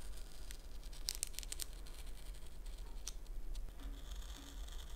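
Hobby-knife blade cutting through paper along a stencil outline: small scratchy ticks as the tip digs in and drags, then a longer slicing scrape near the end.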